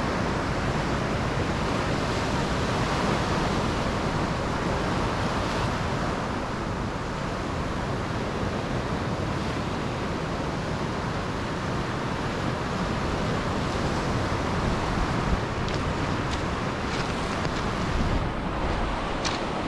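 Sea surf breaking and washing up a pebble beach in a steady rush, with some wind on the microphone. A few sharp pebble clicks come in near the end.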